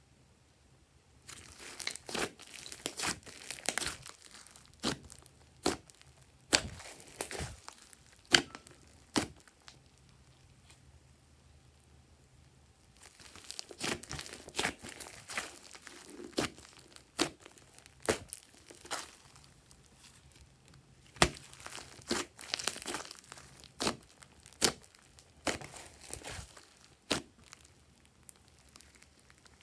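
Hands kneading, squeezing and pulling thick slime, making sticky crackling and popping clicks as air pockets burst and the slime tears and squishes. The crackling comes in two long stretches with a quieter pause about ten seconds in.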